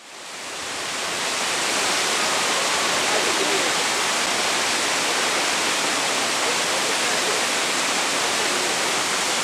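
Mountain waterfall: a steady, even rush of falling water, fading in over the first second or so.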